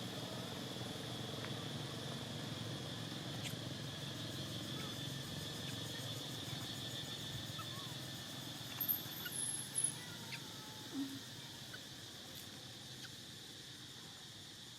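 Outdoor ambience: a steady high-pitched drone over low background noise, with a few brief squeaks and clicks about nine to eleven seconds in.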